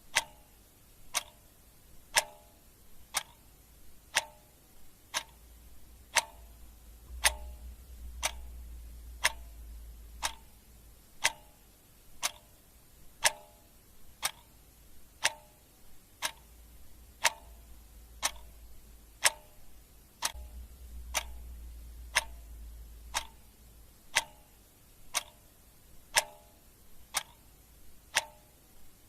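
Clock ticking sound effect: a steady tick-tock, with a sharper tick about once a second and a softer one between.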